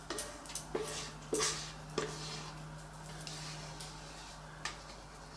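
Spatula scraping and knocking inside a stainless steel mixing bowl as the last sponge batter is scraped out: several short scrapes in the first two seconds, then one more near the end. A faint steady low hum runs underneath.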